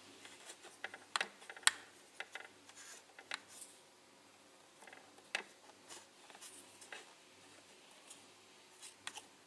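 Scattered light clicks and taps of plastic Play-Doh dentist toy tools and parts being handled, a few sharper ticks among quiet stretches.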